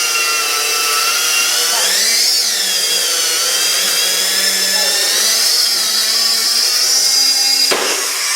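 Dirt Devil upright vacuum cleaner motor running with a loud, steady whine, its pitch dipping and then rising about two seconds in. A sharp knock comes near the end.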